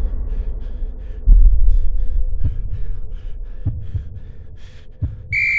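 Slow, heavy heartbeat thumps, about one every second, over a deep rumble, a dramatic sound effect. Near the end a coach's whistle gives a sharp, steady blast.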